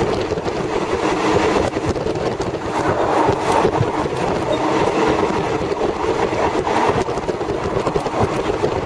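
Steady running noise of a moving vehicle heard from on board: a continuous rumble with rapid rattling and clatter.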